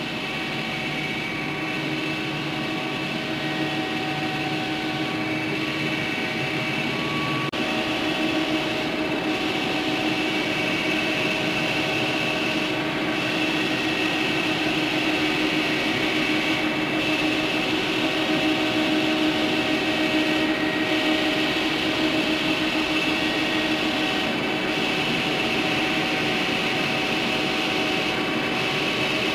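Steady whir of running machinery: a constant rush of air with several steady humming tones, growing a little louder over the first several seconds.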